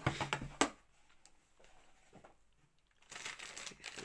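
Clear plastic packaging bag crinkling as it is handled: a run of sharp crackles at the start, a pause of about two seconds, then crinkling again near the end.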